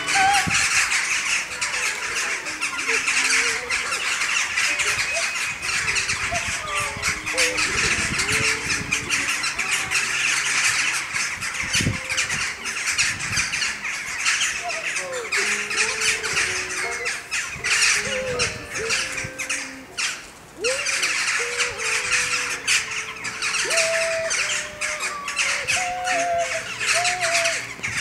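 A large flock of small crows calling together, a dense, continuous chatter of many overlapping harsh calls, with a brief lull about twenty seconds in.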